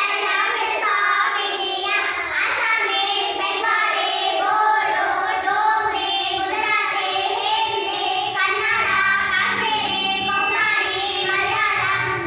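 A group of young girls singing together in unison.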